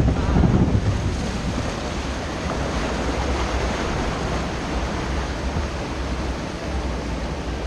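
Rushing, churning white water of a rapid-river ride around a round raft boat, with wind buffeting the microphone. Louder in the first second or so, then steady.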